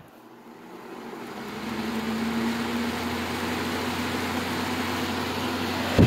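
Window air conditioner's fan motor spinning up on the low fan setting: the rush of air from its blower wheel and a low hum build over the first two seconds, then run steady. The compressor is not running yet.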